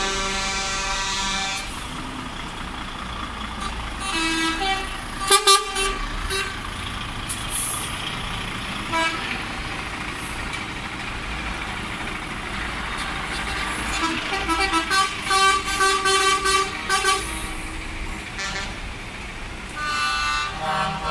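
Lorries in a slow convoy drive past one after another with their diesel engines running. Their air horns sound again and again: a long blast at the start, short toots about a quarter of the way in, a run of choppy toots about two-thirds through, and another blast near the end.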